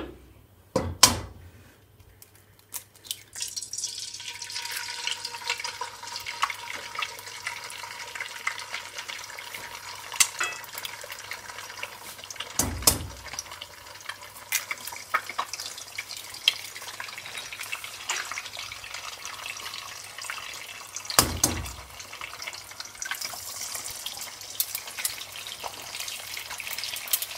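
Eggs sizzling and crackling in hot oil in a kadai, the frying starting about three seconds in and carrying on steadily. Three sharp knocks as the eggs are cracked open, one near the start, one about halfway through and one a little later.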